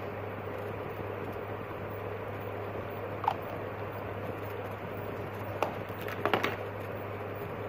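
Steady background hum and hiss with a few short clicks and taps: one about three seconds in, another a little before six seconds, and a quick cluster just after six seconds.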